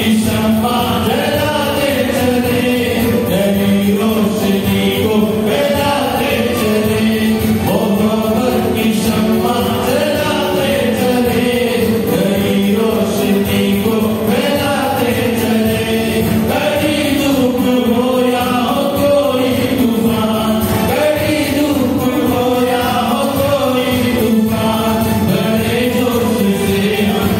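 A choir of many voices singing a Christian devotional song together, with a continuous melody and no pauses.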